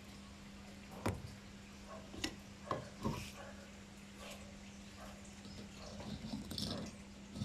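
Several sharp knocks and clunks in the first half, then a stretch of rustling and scraping near the end, over a faint steady low hum.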